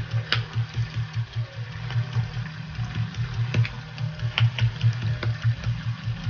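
Stone pestle pounding sauté ingredients (shallots, garlic, chillies, belacan, dried anchovies) in a stone mortar: a steady run of dull thuds about four a second, with now and then a sharper stone-on-stone click.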